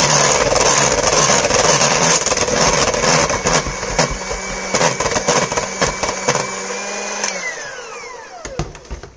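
Electric hand mixer running steadily as it beats thick cake batter in a stainless steel bowl, the beaters knocking against the bowl again and again. About seven seconds in it is switched off and its whine falls away as the motor spins down.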